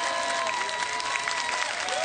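Studio audience applauding and cheering, with sustained high-pitched shouts carrying over the clapping.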